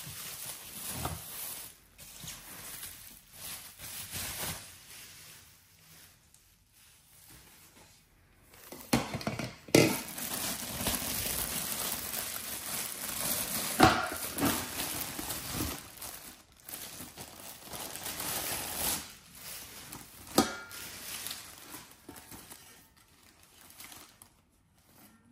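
Bubble wrap and plastic film crinkling and rustling as they are pulled off a stainless steel steamer pot, with a few sharp metal clinks and knocks from the steel steamer tiers being handled, the loudest about ten, fourteen and twenty seconds in.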